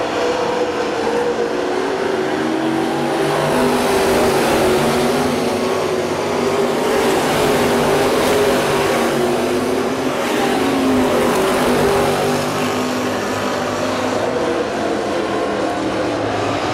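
A pack of dirt-track race cars running hard around the oval, several engines droning at once and wavering in pitch as they go through the turns. The sound swells in the middle as the pack passes close by, then eases as it moves down the far side.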